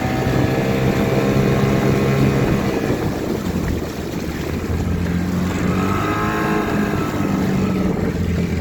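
7.5 hp Mercury outboard motor running under way, pushing a square-stern canoe, with water and wind noise beneath it. The engine note dips briefly about four seconds in, then picks up again.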